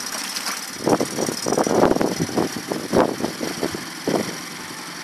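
2009 Mercury 8 hp four-stroke outboard motor running in a test barrel of water, with irregular louder surges about a second to three seconds in; it is judged to be running evenly.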